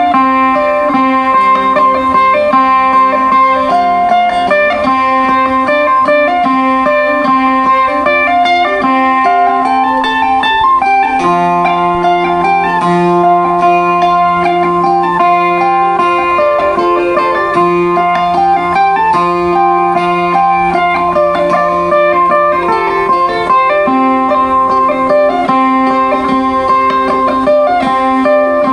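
Sape, the Kayan plucked boat lute, playing a quick repeating melody over held low drone notes; the drone shifts to a lower note about eleven seconds in and back up near the end.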